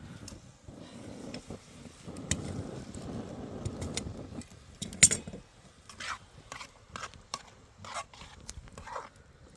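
A scraping, rustling noise from handling things, a single sharp click, then a run of light knocks and clinks, about two or three a second.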